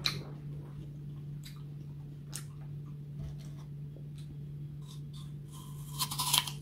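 Teeth biting and crunching into a raw green apple slice, with a loud cluster of crunches about six seconds in, after a few single sharp clicks. A steady low hum runs underneath.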